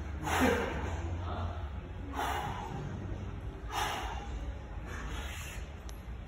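A man taking three sharp, forceful breaths, about a second and a half apart, as he psychs himself up before a heavy bench press. A steady low hum runs underneath.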